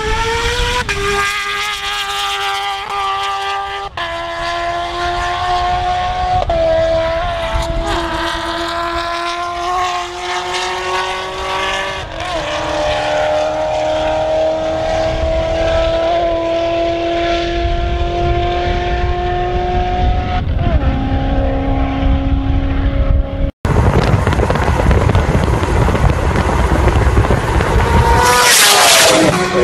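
Supercharged Kawasaki Ninja H2's inline-four engine at high revs, its pitch climbing and dropping back at each upshift, then climbing slowly for several seconds in one gear. After an abrupt cut come heavy wind and road noise with a steadier engine tone, and a loud rush near the end.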